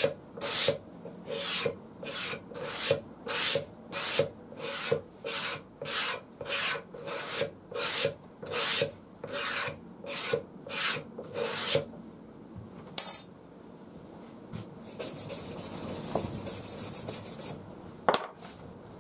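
An old Stanley utility-knife blade scraped along a leather strop to clear off the old polishing compound, about two strokes a second; the scraping stops about twelve seconds in, followed by a light clink and a single click near the end.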